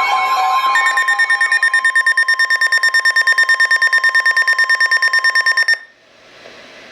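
Emergency Alert System alert tones announcing the re-sent blizzard warning: a warbling siren sound gives way, about a second in, to rapid electronic beeping at roughly ten beeps a second over a steady high tone. The tones cut off suddenly near the end, leaving a faint hiss.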